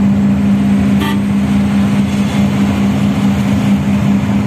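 Truck's diesel engine running at cruising speed, heard from inside the cab as a steady low drone over road noise, with a brief higher blip about a second in.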